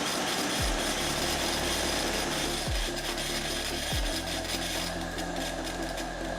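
FastEDR electrical discharge machine eroding an airframe rivet: a steady, crackling hiss from the electrical pulses over a low hum, broken by a few short low downward sweeps.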